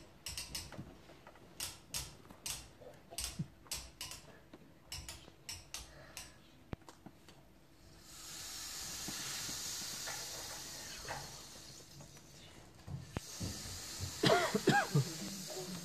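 Scattered light knocks and clicks, then a steady hiss, and near the end a few short pitched sounds that waver up and down.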